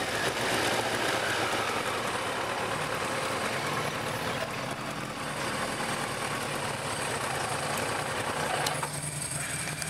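Sport motorcycle engine running steadily at low revs as the bike rolls slowly, heard from on board. A sharp click comes near the end.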